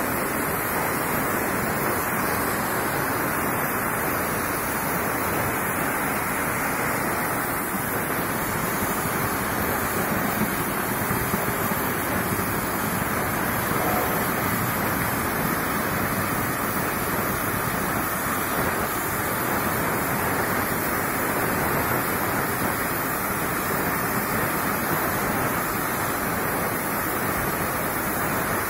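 Oxy-fuel cutting torch on a CNC plate-cutting machine, its oxygen jet blowing through steel plate with a steady rushing noise.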